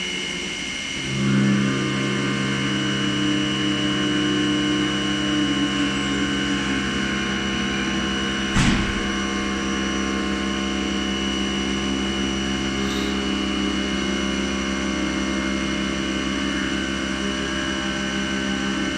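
HAAS VF-8/40 vertical CNC machining center running through a milling job: a steady whine of several tones, with deeper tones joining and the sound growing louder about a second in. A single sharp knock about eight and a half seconds in.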